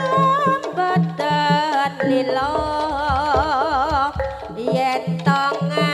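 Javanese jaranan ensemble music: a drum beating a steady rhythm under a high melody with wide vibrato.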